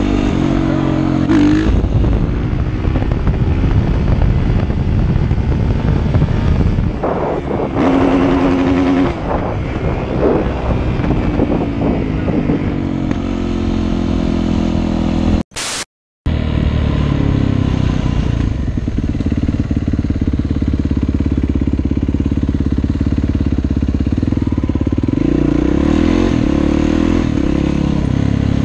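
Dirt bike engine running under the rider, rising and falling in pitch as it revs between gears. About halfway through the sound cuts out for a moment after a short sharp burst, then the engine carries on at a steadier pitch.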